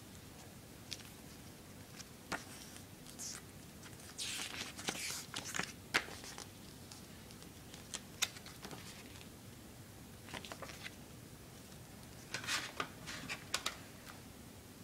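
A CD album package being handled: scattered light clicks and taps with short rustles, busier about four seconds in and again near the end.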